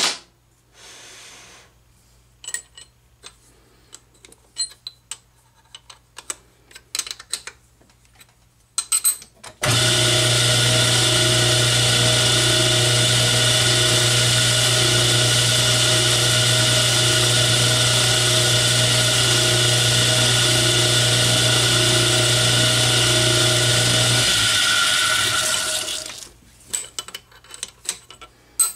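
Light clicks and taps for the first ten seconds or so. Then an Atlas 10-inch lathe switches on and runs steadily for about fifteen seconds, spinning a steel grease cap in its chuck while a number 3 drill is fed into it. Near the end the motor is switched off and the lathe coasts down, followed by a few more clicks.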